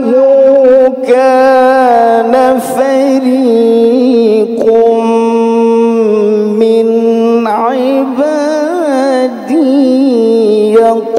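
Male Quran reciter chanting melodic tilawah through a handheld microphone: long held notes with wavering, ornamented turns, breaking off briefly a few times to draw breath or move to a new phrase.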